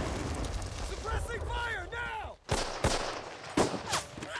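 Battle sound effects: the low rumble of a shell blast dies away under men's shouts. About halfway through, a few sharp, separate gunshots ring out.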